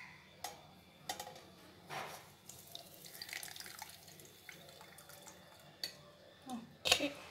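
Hot mint tea poured from a steel saucepan through a steel mesh tea strainer into a steel vessel: a thin trickle and drips of liquid, with scattered light clinks of steel and a few louder knocks near the end.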